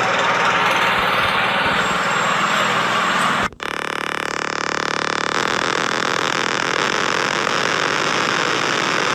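Emergency alert sounds played back: a dense, noisy alert cuts off abruptly about three and a half seconds in, and a new alarm starts in its place with several steady held tones that turn harsher and buzzing a couple of seconds later.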